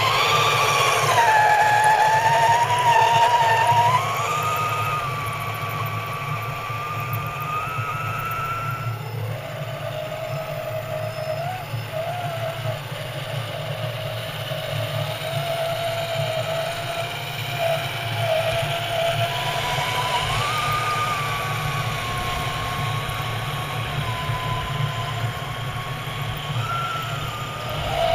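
Electric motor and gear whine of a radio-controlled scale crawler truck, rising and falling in pitch as it is throttled, over a steady low hum.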